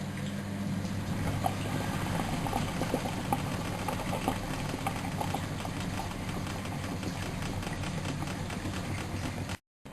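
Miele Novotronic W914 washing machine mid boil-wash: the drum turning with a steady motor hum and the laundry tumbling, with scattered small knocks. The sound cuts out abruptly near the end.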